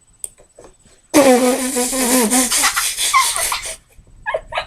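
A girl laughing loudly: a long, breathy laugh begins about a second in, then breaks into short rhythmic laughs near the end.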